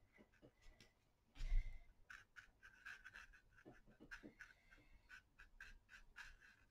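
Faint, short scratchy strokes of a fine paintbrush dabbing paint onto watercolour paper, with one louder dull bump about a second and a half in.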